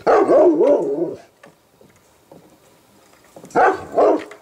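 Bernese Mountain Dog puppy vocalizing in rough play: a wavering whine for about a second, then two short yips near the end.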